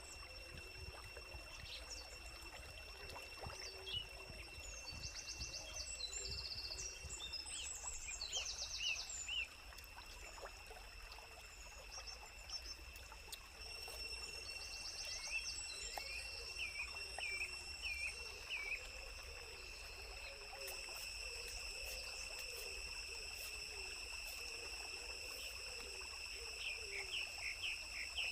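Outdoor ambience of insects droning in a steady high-pitched whine, with birds chirping in short runs of notes about halfway through and again near the end.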